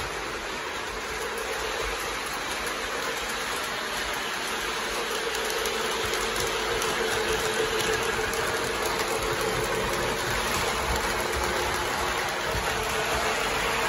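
Lionel Legacy Southern 4501 Mikado O-gauge model steam locomotive running along the track with its train, its onboard sound system giving a steady steam hiss over the running of the wheels and motor. A steady hum sits under the hiss, and the sound grows louder as the locomotive comes close.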